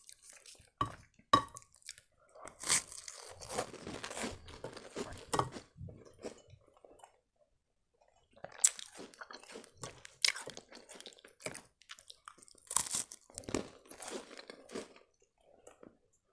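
Crunchy sandwich biscuits with a chocolate filling being bitten and chewed close to the microphone: clusters of crisp crunches, a short quiet pause about halfway through, then more crunching.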